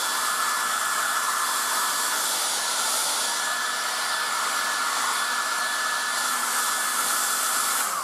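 1980s Black & Decker Stowaway travel hairdryer running steadily, a rush of air with a steady whine, blowing onto hair. It is switched off near the end and the whine falls away as the motor spins down.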